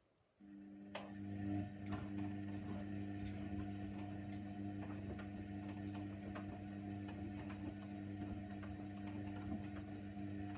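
Hoover Nextra 6 washing machine starting up after a pause: a motor comes on about half a second in and runs with a steady hum, with frequent light clicks over it.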